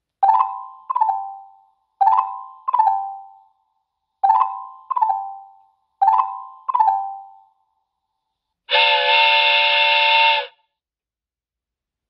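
Ring Chime doorbell speaker playing its "Xylophone" chime: four pairs of struck xylophone-like notes, each note ringing out. Near the end it plays its "Train Whistle" chime, a single steady chord-like whistle blast of about two seconds.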